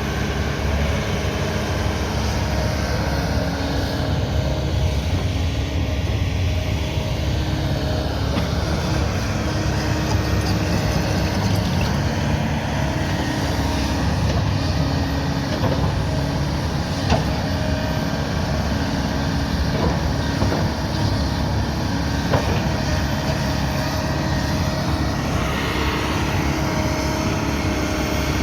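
Kobelco 220 excavator's diesel engine running steadily under working load, with a few sharp knocks past the middle.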